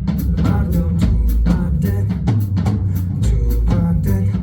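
Live band playing a funk groove: drum kit hitting a steady beat under a driving bass line, with guitar.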